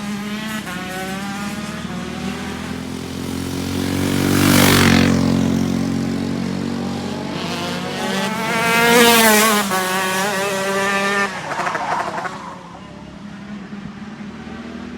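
Racing car engines passing by at speed, two loud passes about four and a half and nine seconds in, the engine note bending downward as each goes by; quieter engine sound after that.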